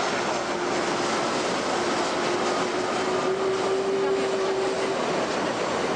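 Boeing 757 jet engines running at approach power as the airliner comes in low to land: a steady rushing noise with a held low whine that grows stronger and rises slightly about three seconds in.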